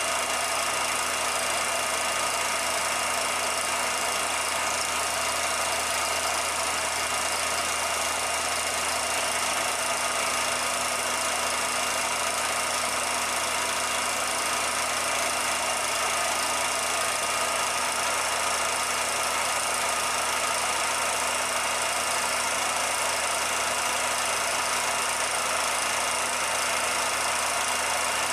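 Steady, unchanging mechanical hum and hiss, like a motor running, with a few faint constant tones. The footage itself was shot without sound, so this is noise laid over the silent film rather than anything in the scene.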